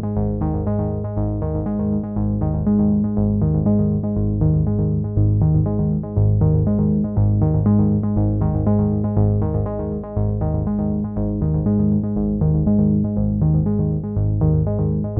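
Background music: synthesizer and keyboard with a steady, evenly pulsing rhythm.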